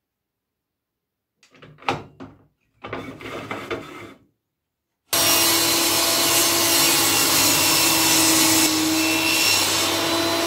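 A few knocks and rustles of a wooden board being handled, then about five seconds in a benchtop table saw runs with a steady hum while ripping a thin sliver off the board; it cuts off abruptly near the end.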